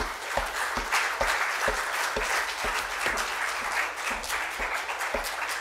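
Audience applauding, many hands clapping together, swelling over the first second and then holding steady.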